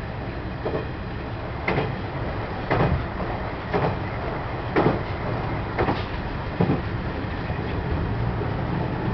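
Kiha 110 series diesel railcar running at speed, heard from inside the cab end: a steady running rumble with sharp wheel clacks over rail joints about once a second, which stop near the end.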